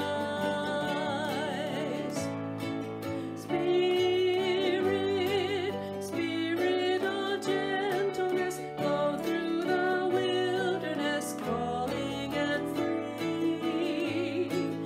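A woman singing a hymn with vibrato while strumming chords on a ukulele; the voice pauses briefly about two seconds in and comes back louder, while the strumming carries on.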